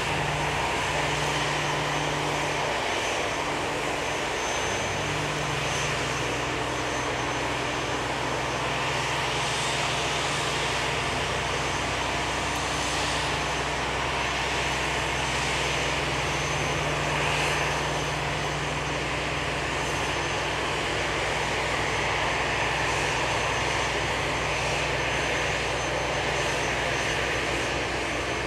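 Steady hum and hiss of an Airbus A340-313 being towed by an aircraft tug, with a thin high tone over a low hum that shifts briefly a few seconds in.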